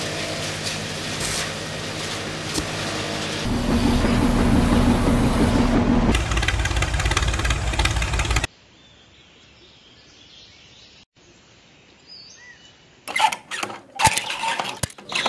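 Small battery-powered electric motors of miniature model machines running with a steady hum, growing louder with a rhythmic rattle about three and a half seconds in, then cutting off sharply. A quiet stretch with faint bird chirps follows, and near the end come a few sharp clacks as the handle of a small model hand pump is worked.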